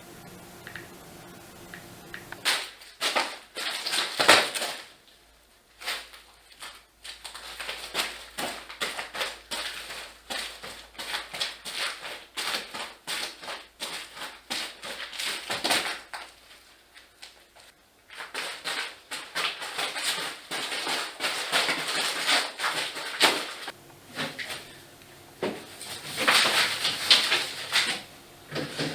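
Foley props being handled for a recording: rapid clicks, rustling and scraping in long bursts, broken by two short pauses.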